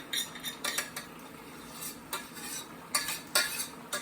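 A spoon scraping and clinking against a cooking pan in a series of irregular strokes, scooping cooked quinoa and egg out of it.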